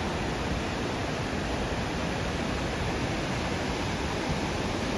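Steady rush of a creek cascading through boulders.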